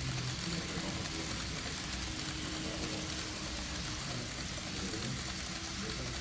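N gauge model trains running on the layout: a steady fine rattle of small wheels on track, with a faint steady hum.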